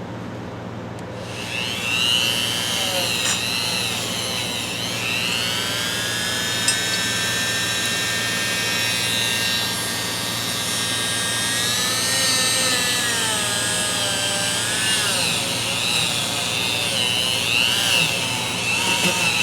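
Dremel rotary tool starting up about a second and a half in and running at high speed. Its high whine dips and recovers again and again as it is pressed against the metal of an old Proto ratchet to clean off a stain.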